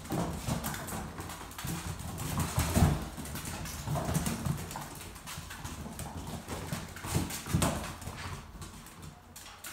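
Dogo Argentino puppies scrambling and play-wrestling on a hard vinyl floor, their claws clicking and skittering in quick irregular taps, with louder scuffles about three seconds in and again near the end.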